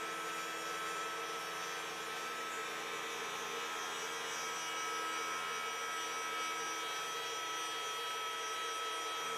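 Spindle motor of a 3018 Pro desktop CNC router running steadily, a constant hum with several high whining tones, as the bit runs an arc cut in basswood.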